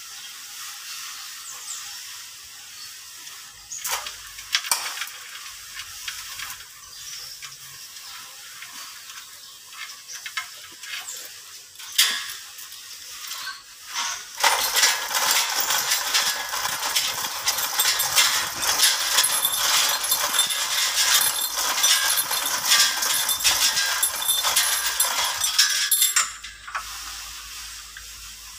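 A few separate metal clinks, then a steady metallic rattling and clinking of hoist chains for about twelve seconds while the Perkins four-cylinder engine hanging from them is pulled away from the tractor. The rattle stops suddenly a couple of seconds before the end.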